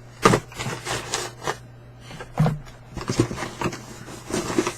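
Cardboard boxes and packaging being handled and shuffled: rubbing and scraping with a few sharp knocks, loudest near the start and about two and a half seconds in.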